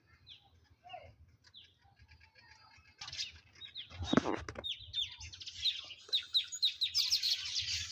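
Small birds chirping in short, downward-sliding chirps: a few scattered calls at first, then busier and louder from about three seconds in, with a brief louder noise about halfway.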